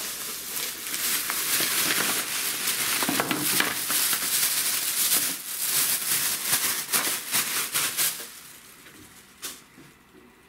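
Thin plastic shopping bag crinkling and rustling as it is handled and shaken out, with items and packaging rattling out of it; the noise dies down about eight seconds in, leaving a couple of soft knocks.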